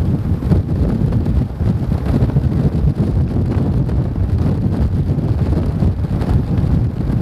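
Heavy wind buffeting the action camera's microphone at road speed on a moving motorbike: a loud, fluttering low rumble that masks any engine or tyre sound.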